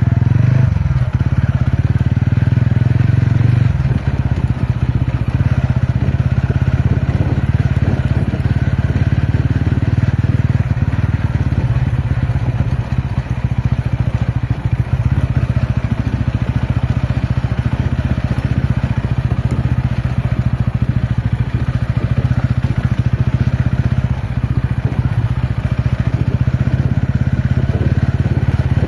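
Ronin motorcycle's engine running while riding, at a fairly steady pitch, with a shift in the engine note about four seconds in.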